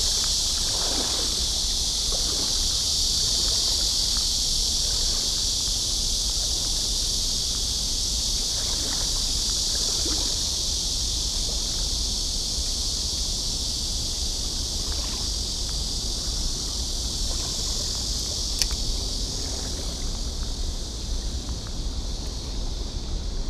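A steady, high-pitched chorus of summer insects, with a low steady rumble underneath and a single sharp click near the end.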